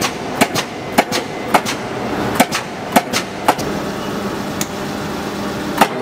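JH21-25 mechanical punch press running, its motor and flywheel humming steadily while the ram strokes. Sharp metallic clunks come often in pairs, every half second to a second at first, then spaced out with one loud clunk near the end.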